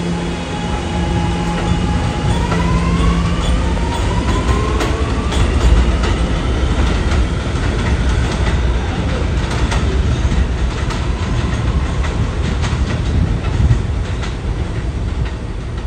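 Kawasaki R211A subway train pulling away and picking up speed. The traction motors' whine climbs in pitch in steps over the first five seconds over a steady rumble. Then the wheels click repeatedly over rail joints as it runs on.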